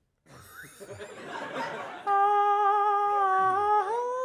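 A man's voice singing one long held note as a vocal sound effect, stepping up in pitch near the end. Before it, about a second of breathy noise that swells.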